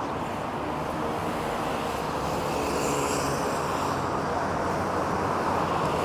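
Steady road traffic noise from passing cars. A brief higher hiss swells about three seconds in.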